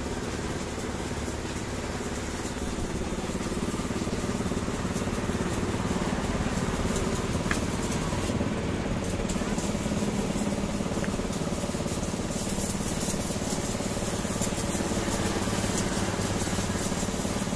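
Pressure washer running steadily, its motor and pump humming while the water jet hisses against a motorcycle; the hiss drops out briefly about eight seconds in.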